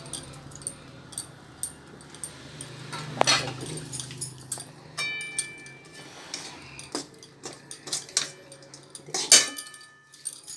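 Bangles on a woman's wrists clinking and jingling in quick, irregular clicks as her hands press and roll puffed-rice laddus. A short metallic ring sounds about halfway and again near the end, and a faint steady hum lies underneath.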